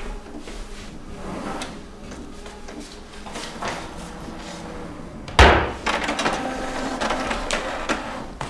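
Someone rummaging in a bookcase's lower cabinet: soft knocks and rustling, then a cabinet shut with a sharp bang about five seconds in, the loudest sound, followed by more handling noise.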